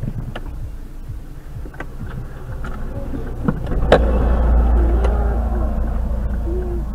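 Low rumble of a stopped car heard from its cabin, with scattered clicks. About four seconds in there is a sharp knock, after which the low rumble grows louder and stays that way.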